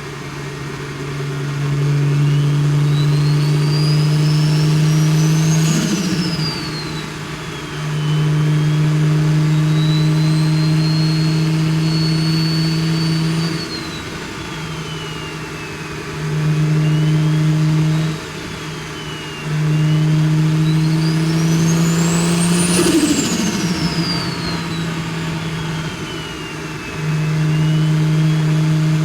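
BMW N54 inline-six with a big single-turbo conversion pulled hard under load: the turbo whistle climbs in pitch as it spools, peaking twice, about 6 s and about 23 s in, each time followed by a falling flutter as the throttle is lifted. Between pulls the engine drone drops away briefly several times.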